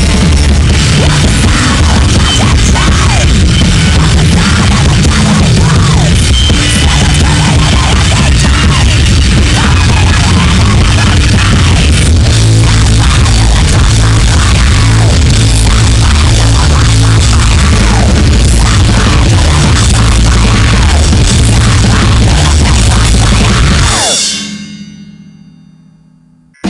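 Loud rock music with electric guitars and a drum kit. About 24 seconds in, the band stops and a last note rings and fades away.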